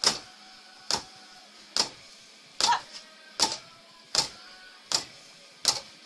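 Punches landing on a punching target in a steady rhythm, eight hits a little under a second apart, several of the later ones as quick double hits.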